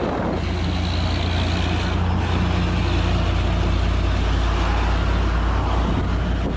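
Heavy three-axle truck's diesel engine running under load, a steady low drone with road and engine noise above it.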